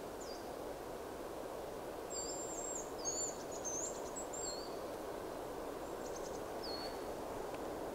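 Hazel grouse decoy whistle sounding the bird's high, thin song: a long held whistle about two seconds in, then a run of short falling notes. A few fainter high whistles come near the start and near the end, over a steady hiss.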